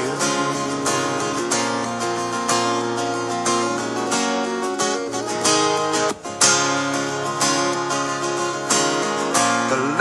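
Background music: an acoustic guitar strumming chords in an instrumental passage, with a brief break in the strumming a little past the middle.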